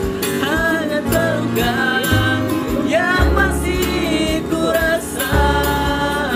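Two young men singing a song together in a street-busking style, accompanied by a strummed acoustic guitar.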